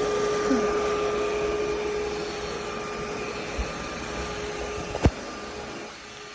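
Yeedi M12 PRO+ robot vacuum running: a steady suction whir with a steady whine, easing off and dropping away near the end, with a sharp click about five seconds in.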